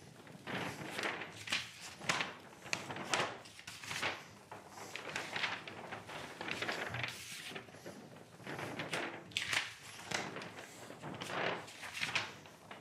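Brown paper sheet rustling and crackling as its corners are lifted and let fall again and again, with the powdered bengal-fire composition on it sliding and rolling over itself: the last pass of hand-mixing the powder.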